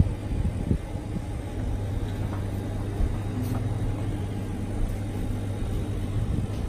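Phone-screen vacuum laminating machine running with a steady low hum, its vacuum pump holding the chamber under suction while the glass is pressed. A few faint knocks are heard, about a second in and again around three seconds.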